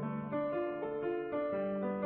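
Background piano music, notes played one after another at a gentle pace.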